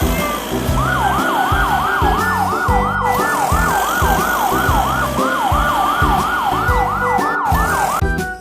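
An emergency-vehicle siren sound effect in a fast yelp, rising and falling about three times a second, over background music. It starts about a second in and stops just before the end.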